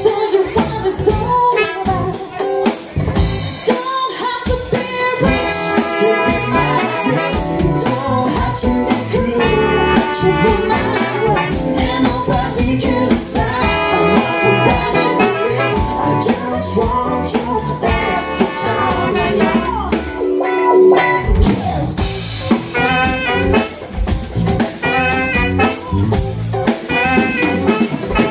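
Live funk band playing: a female lead singer over saxophone, trombone, electric guitar and a drum kit keeping a steady beat.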